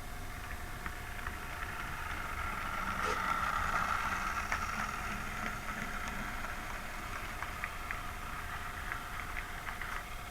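Model train running on the layout track: a steady whine under a rolling rumble that grows louder a few seconds in and then eases off, with scattered light clicks.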